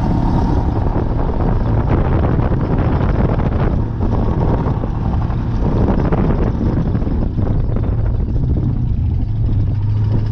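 Gator utility vehicle's engine running steadily as it drives over a rough field, heard from on board, with wind buffeting the microphone.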